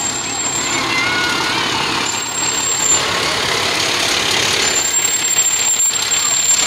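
A fire engine's diesel engine running as the pumper rolls slowly past at close range.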